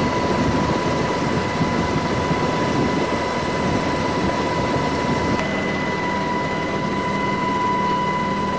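Helicopter noise heard from inside the cabin during a hoist rescue: a loud, steady rush of rotor and engine with a steady high tone running through it. About five seconds in, a low hum joins.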